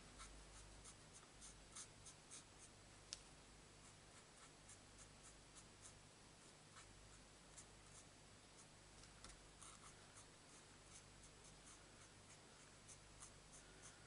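Faint scratching and dabbing of a marker tip on cardstock as small flower centres are coloured in red, with a sharper tick about three seconds in.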